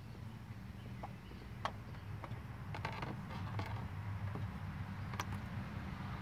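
Spin-on oil filter being unscrewed by hand from a BMW M20 inline-six and worked free. It gives a scattering of short clicks and scrapes as it turns against its mount, over a steady low hum.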